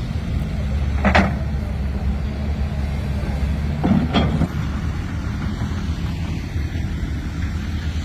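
Steady low engine rumble of running machinery, with two brief louder sounds, one about a second in and one about four seconds in.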